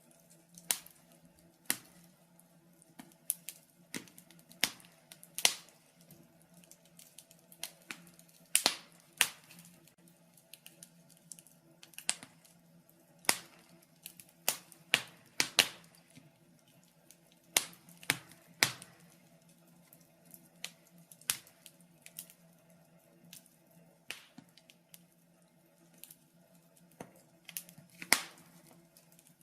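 Wood fire crackling in a fireplace: irregular sharp pops and snaps, some single and some in quick clusters, with short quiet gaps between.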